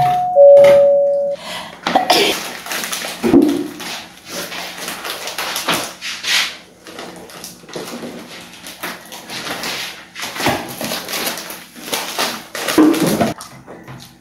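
A two-note ding-dong chime, a higher tone falling to a lower one, during the first second or so. Then a knife knocking and scraping on a wooden cutting board as ripe mangoes are peeled and sliced.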